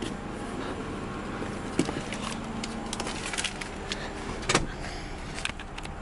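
Steady low hum inside the cabin of an Infiniti JX35 SUV with its engine running, broken by scattered clicks and knocks of someone moving about the leather seats and handling things in the back.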